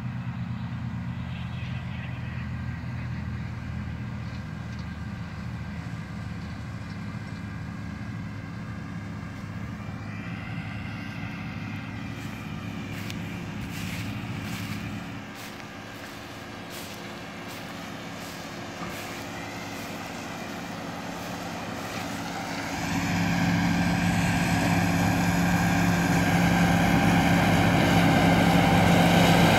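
Diesel engine of a John Deere self-propelled windrower running steadily while it mows guinea grass, growing louder over the last several seconds as the machine comes closer.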